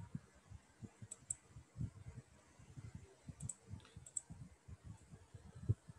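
Faint clicks at a computer: a few sharp mouse clicks in quick pairs over soft, irregular keyboard taps.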